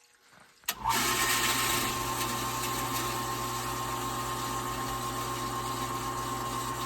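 Well pump switching on with a click about a second in, then running steadily with a low hum, a higher steady tone and a hiss, slightly louder at first before settling.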